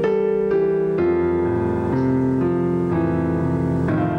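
Piano played slowly: a simple melody with a new note about every half second over lower held notes.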